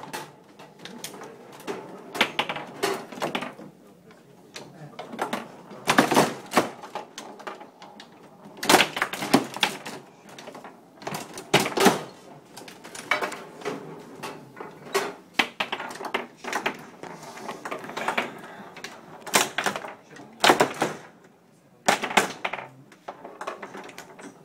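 Foosball table in fast play: irregular sharp clacks and knocks as the plastic figures strike the ball and the ball bangs about the table, coming in quick runs of several hits.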